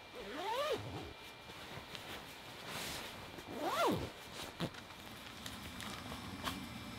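A zipper pulled twice, each pull a short stroke that rises and falls in pitch, with a few light rustles and clicks between.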